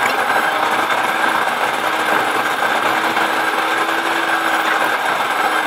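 A car being driven along a road, heard from inside the cabin: a steady engine drone mixed with rough road and wind noise. The engine note creeps up and then drops away about five seconds in.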